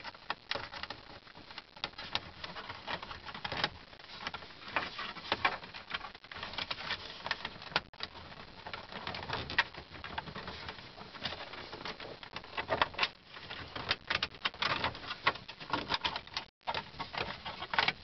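Plastic steering column cover panels being pried and unsnapped by hand: a run of irregular clicks, snaps and crackles of plastic.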